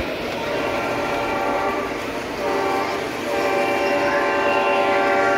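Lionel ES44C O-gauge model diesel locomotive sounding its horn through its onboard sound system: a long blast, a brief break about two seconds in, then a second, longer blast.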